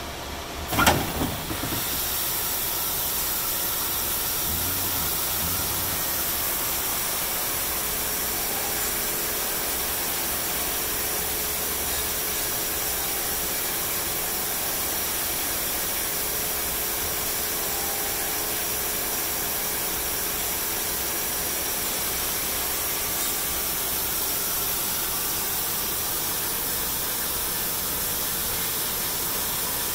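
A few sharp knocks about a second in, then the Kondo GKP-350 CNC grinder running with a steady, even hiss.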